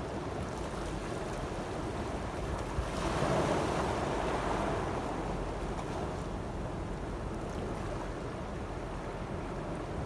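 Sea waves breaking and washing over a rocky, pebbly shore in a continuous surf noise over a steady low rumble. One wave swells louder about three seconds in and ebbs away over the next two seconds.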